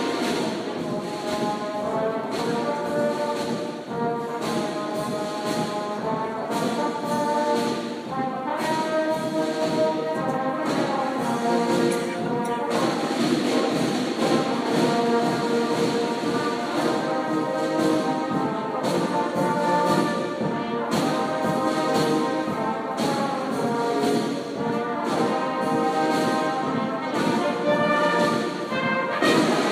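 Youth marching band playing a tune on brass instruments over a steady drum beat.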